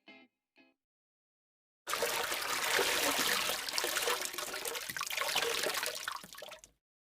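Water pouring and splashing, a dense rushing sound that starts suddenly about two seconds in, runs for about five seconds and tapers off. Just before it, the last few plucked guitar notes of a short jingle.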